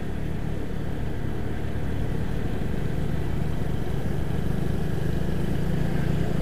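Steady low drone of a motor vehicle's engine while driving, with road and wind noise.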